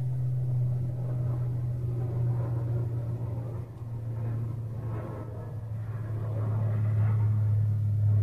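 Airplane passing overhead: a low, steady engine drone that grows gradually louder.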